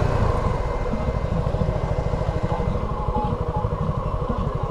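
Suzuki V-Strom SX 250's single-cylinder engine idling, its exhaust pulses coming in a steady, even beat.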